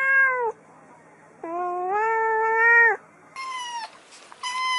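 A domestic cat meowing: a short meow, then a longer drawn-out one. After that come two short, higher-pitched meows from a kitten.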